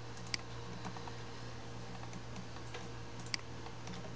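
A few isolated sharp clicks from working a computer, the two loudest about three seconds apart, over a steady low hum.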